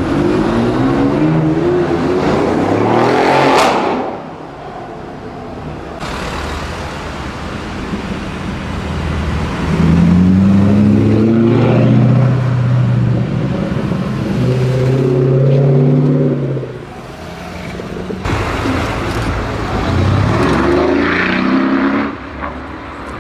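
Mercedes-AMG car engine revved hard three times, each time climbing in pitch and then dropping off sharply to a lower, steady idle in between.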